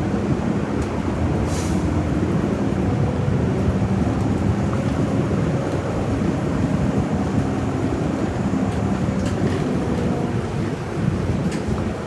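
City bus engine running with road noise, heard from inside the passenger cabin while the bus drives: a steady low rumble whose pitch drifts a little.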